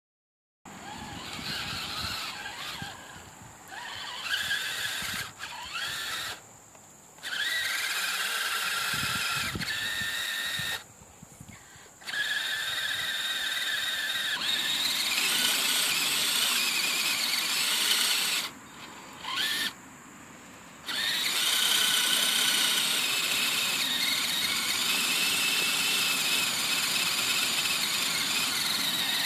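HPI Crawler King RC crawler's electric motor and gearbox whining under throttle. The high-pitched whine rises and falls in pitch and cuts out several times when the throttle is let off, then runs steadily near the end.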